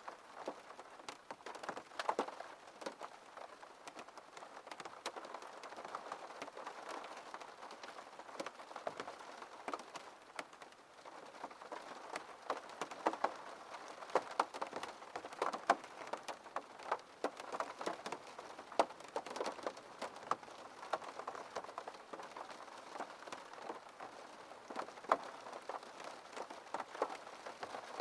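Rain falling steadily on a window, a constant patter with many separate drops tapping irregularly on the glass.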